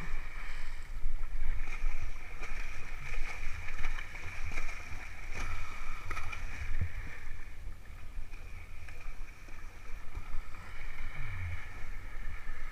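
Horses wading through shallow pond water, their legs splashing and the water sloshing irregularly, over a steady low rumble.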